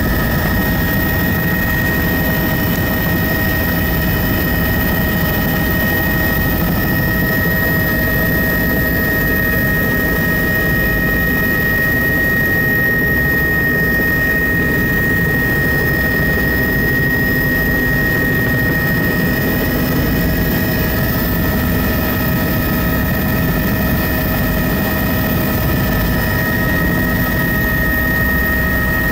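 Bell 206L-1 Long Ranger helicopter's turboshaft engine and rotor running steadily: a high turbine whine over dense, unchanging rotor noise.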